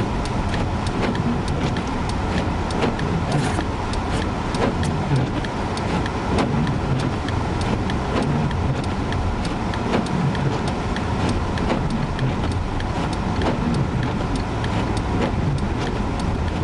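Steady road and engine rumble of a vehicle driving through a blizzard, heard inside the cabin, with frequent irregular light ticks.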